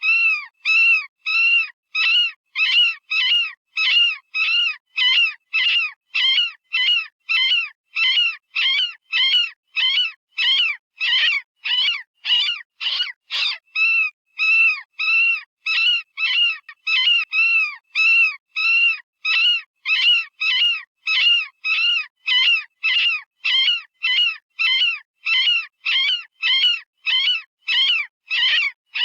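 Software-generated rabbit distress call of the kind used for predator calling: short, high-pitched screams repeated evenly about twice a second. Each scream rises and falls in pitch.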